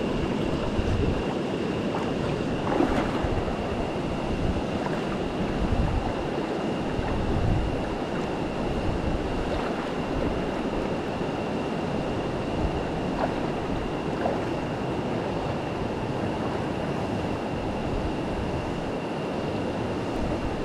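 Steady rush of river water running over shallow rocks, with wind buffeting the microphone. A thin, steady high-pitched tone sits above it throughout.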